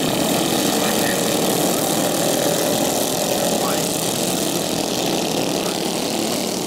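The small engines of several racing ride-on lawnmowers running together as the pack pulls away from a standing start, a steady dense engine noise.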